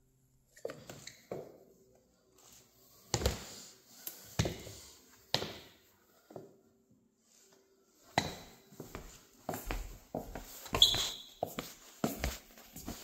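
Phone handling noise: irregular knocks, taps and rustles close to the microphone, with a few louder bumps and a denser run of them in the second half.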